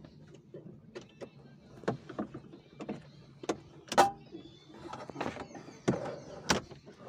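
Irregular clicks and knocks of hand tools and car interior parts being handled, the sharpest about four seconds in.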